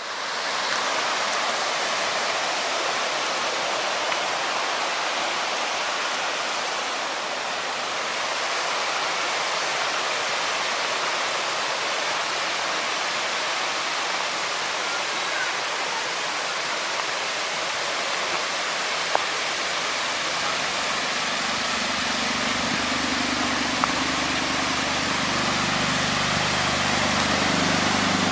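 Mountain river rushing down a rocky cascade: a steady, dense rush of white water. A deeper rumble joins in the last third.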